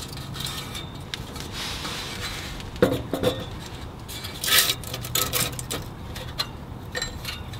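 Thin metal Flexiwrap exhaust-repair sleeve and its jubilee clip being handled and pressed onto a rusty exhaust pipe: irregular light metallic clinks and rubbing, with the sharpest clinks around the middle.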